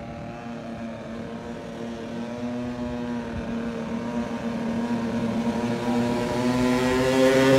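Cobra 50cc children's motocross bike's two-stroke engine running at a near-steady pitch as the bike approaches, growing steadily louder. The mechanic thinks the carburetion needs adjusting for the altitude so that it accelerates a little better.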